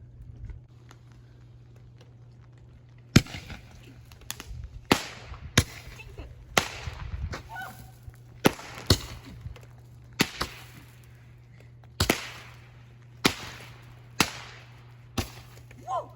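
Fireworks going off in a run of a dozen or so sharp bangs, roughly one a second, starting about three seconds in after a quieter stretch; each bang trails off in a short fading hiss.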